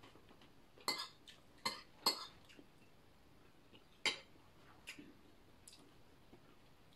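A metal spoon clinking against dishes at a meal: four sharp clinks in the first half or so, then a few fainter ones.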